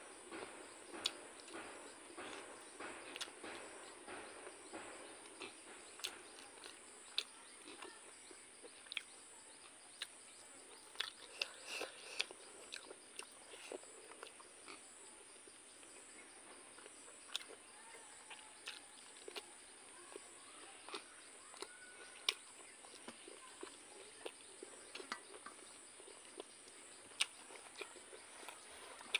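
Close-up eating sounds: chewing and lip-smacking with many short, sharp wet mouth clicks, and fingertips gathering rice on a steel plate.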